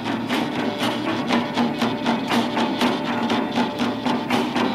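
Upbeat dance music with a quick, steady percussive beat, about four beats a second.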